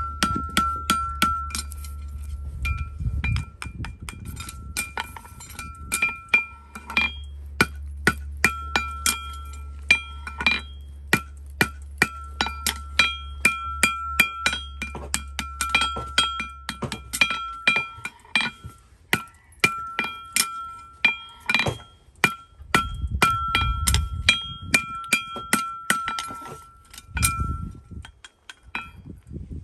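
Hammer striking a steel horseshoe held in tongs on an anvil as the shoe is shaped: sharp metallic blows in quick runs with short pauses, each one leaving a clear, bell-like ring. A low steady hum runs underneath for about the first half, then stops.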